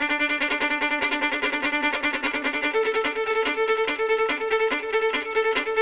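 Solo violin playing very fast martelé strokes from the wrist, so quick that the bow begins to bounce slightly on the string: a rapid stream of short repeated notes, moving from a lower note to a higher one about three seconds in.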